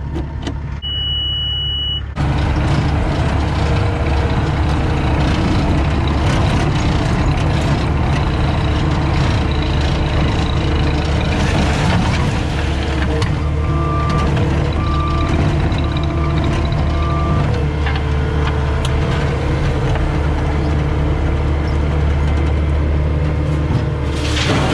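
CAT 259D skid steer's diesel engine running steadily under load, preceded by a short steady high beep near the start. Its backup alarm beeps four times about midway while it reverses.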